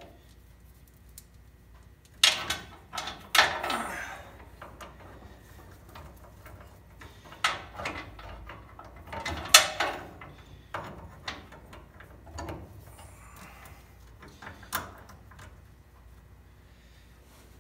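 Metal roller drive chain and steel parts clanking and rattling as they are handled and fitted, in scattered sharp clanks, the loudest cluster about two to four seconds in and another loud one near halfway.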